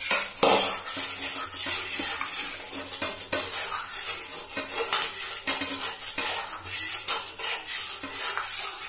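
A metal kadai (wok) being scrubbed out by hand, with rapid, repeated scraping strokes against the pan and a few clinks.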